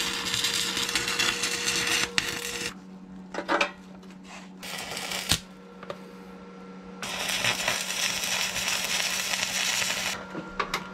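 Electric arc welding: the crackle and sizzle of the arc as steel brackets of a motor mount plate are welded on, in two runs with a short pause and a few knocks between them.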